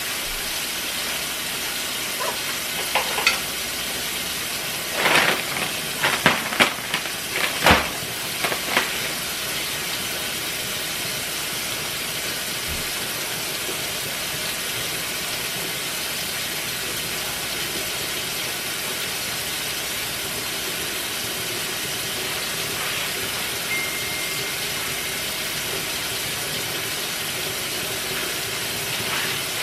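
Kitchen tap running steadily into a stainless-steel sink, a constant hiss of water, with a brief flurry of sharp clicks and knocks between about two and nine seconds in.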